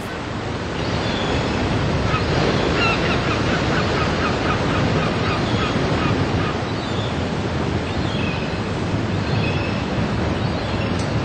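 Steady rush of sea waves on the shore mixed with wind on the microphone. A bird calls in a quick run of short repeated notes about two seconds in, with a few more calls later.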